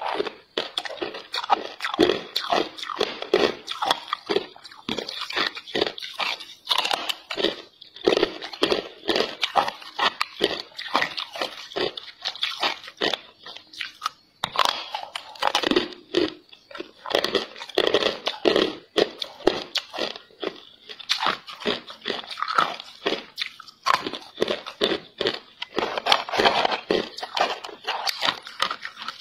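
A person biting and chewing hard ice chunks: rapid, irregular crunching and cracking, with a short lull about halfway.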